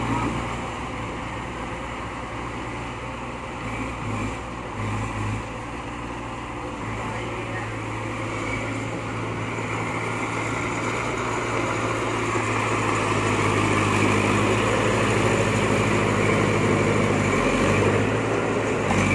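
Diesel engines of a dump truck stuck in mud and a small crawler bulldozer beside it, running steadily; the engine sound grows louder around the middle and stays up.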